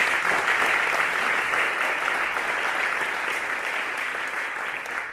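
An audience applauding, a dense steady clapping that slowly eases off toward the end.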